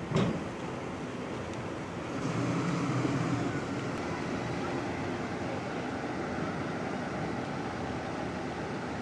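Steady outdoor background noise with a vehicle going by. A single sharp knock at the very start is the loudest sound, and the vehicle's low hum swells about two seconds in before settling back.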